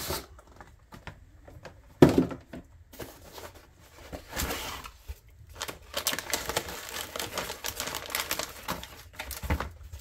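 A graphics card being unpacked from its cardboard box: one sharp knock about two seconds in, then a long run of rustling and crinkling of cardboard, foam and the plastic anti-static bag being handled.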